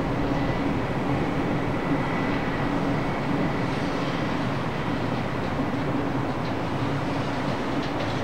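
Steady rumble of a vehicle in motion, with a faint constant hum through it.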